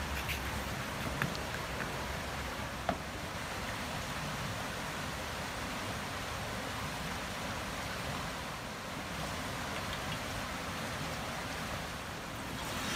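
Steady rushing of river water, with two light clicks of chopsticks against the batter bowl in the first three seconds.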